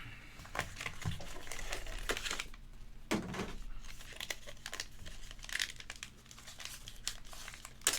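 Plastic card packaging crinkling and tearing in irregular crackles as trading cards are unwrapped and handled.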